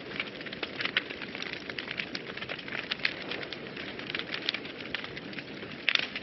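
Wood fire burning in a fireplace: irregular sharp crackles and pops over a steady low rush of flame, with a quick cluster of pops near the end.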